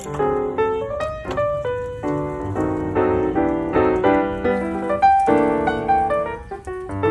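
Piano music playing a quick, flowing melody of many struck notes.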